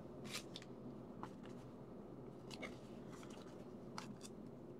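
A thin plastic card sleeve being handled, giving a few faint, scattered crinkles and ticks over a low steady hum.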